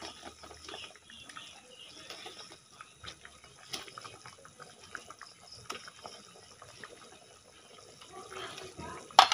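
Tomato curry boiling hard in a steel kadai, with a steady fine bubbling and crackling as pieces of fried fish go into it. It ends with a short, loud metal clatter.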